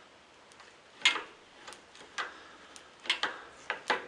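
A handful of short, sharp metal clicks and taps, irregularly spaced, from a screwdriver working on a freshly rebuilt rear brake caliper and its handbrake lever.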